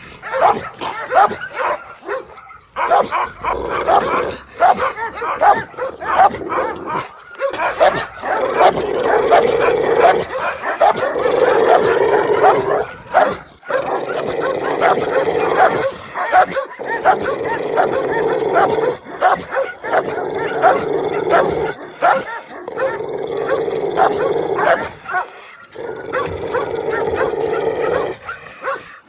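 A dog barking angrily, rapid barks in long runs broken by brief pauses.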